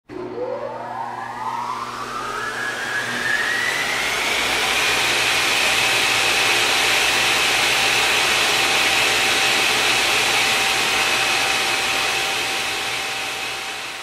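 A high-speed motor spinning up. Its whine rises over the first few seconds, then holds steady over a rushing hiss and fades near the end.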